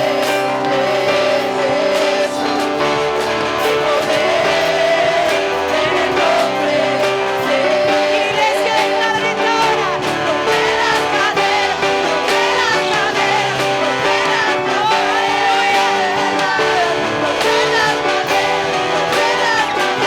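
Live worship music: a church praise band with guitar plays under singing voices, a steady full-sounding song throughout.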